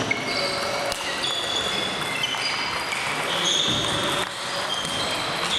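Table tennis balls clicking off tables and bats at several tables at once: many overlapping quick ticks, each with a short high ring, echoing in a large hall.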